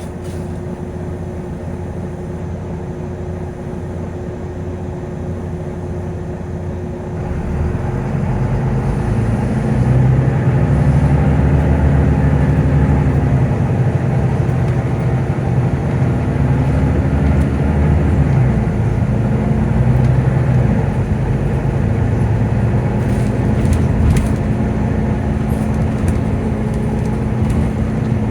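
Volvo B9TL bus's diesel engine idling, then about seven seconds in the engine cooling fan cuts in and builds over a few seconds into a loud rushing whirr over the engine, its pitch wavering slowly as it runs.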